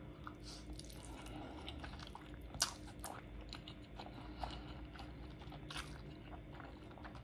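A person eating instant ramen noodles, faint and close: chewing and slurping strands of noodles, with many small wet mouth clicks, one a little louder near the middle.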